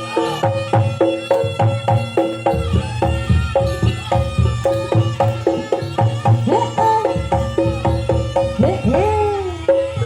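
Javanese jaranan ensemble playing live: fast hand-drum (kendang) strokes under a steady, repeating pattern of struck gong-chime notes, with two sliding notes over it, one around the middle and one near the end.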